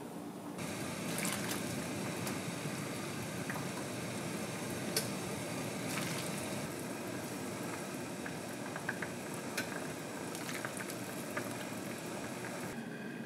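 Soup bubbling at a simmer: a steady hiss scattered with small sharp pops, starting about half a second in and stopping just before the end.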